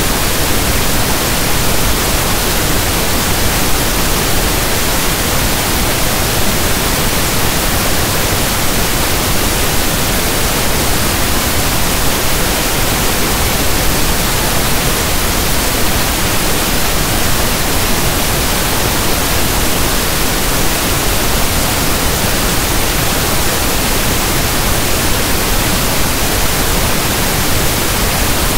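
Steady pink noise: an even static hiss like a radio tuned between stations, unchanging in level.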